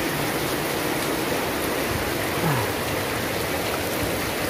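Heavy rain pouring onto a wet, puddled concrete floor: a steady, even hiss of falling water and splashing.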